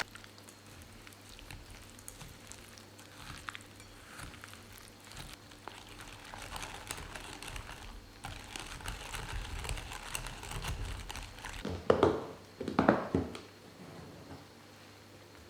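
Light handling noises: soft rustling and small clicks, then two louder, brief noises about twelve and thirteen seconds in.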